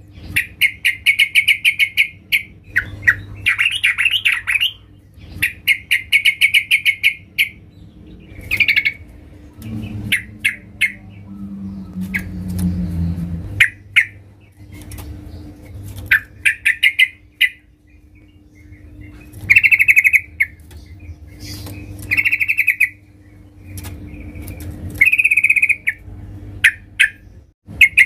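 Yellow-vented bulbul (trucukan) calling: a female's call used to draw males, in repeated short bursts of rapid chattering notes with brief pauses between them.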